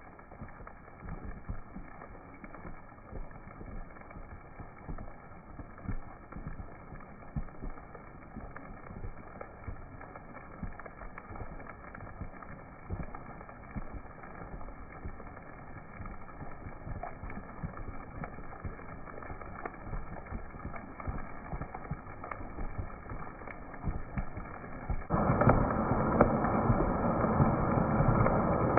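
Rain falling, a steady hiss with scattered drops ticking, turning abruptly much louder near the end.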